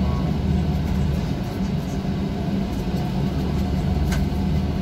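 City bus in motion, heard from the driver's seat: a steady low drone of engine and road noise. A single short click about four seconds in.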